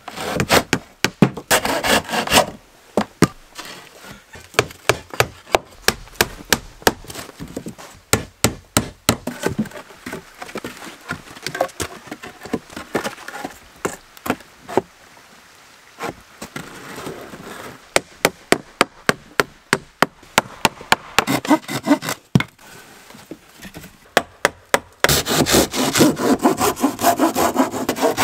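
Hand saw cutting through old wooden boards in stretches of quick rasping strokes, with sharp knocks and clatter of wood between them.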